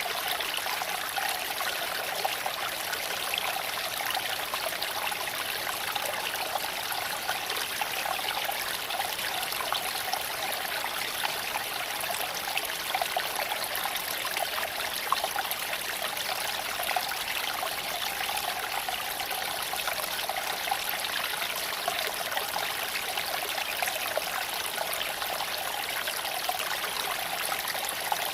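Creek water flowing steadily over stones, an even rushing and trickling with small splashes throughout.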